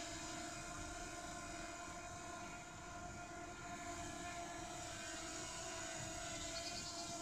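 DJI Mini 2 quadcopter hovering, its propellers giving a steady buzz made of several held tones.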